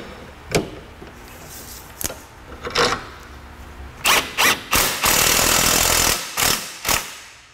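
A few light metal clinks as the nut and bolt are handled, then a power tool runs in several short bursts and one steady run of about a second, spinning the nut onto the rear lower strut bolt. The nut is only run up, not fully tightened, until the car is back on the ground.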